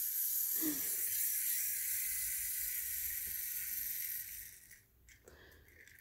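Small clockwork motor of a wind-up toy helicopter whirring with a high, steady buzz that slowly fades as the spring runs down, stopping about four and a half seconds in. A few light clicks follow.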